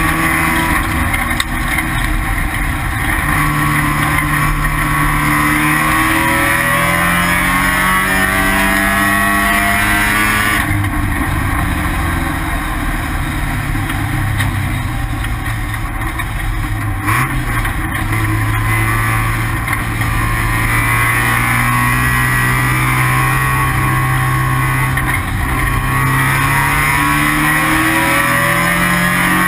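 Onboard sound of an IT7 race car (a first-generation Mazda RX-7 with a rotary engine) at racing speed: the engine note climbs and drops over and over through gear changes and corners, with a sudden drop about ten seconds in, over wind and road noise.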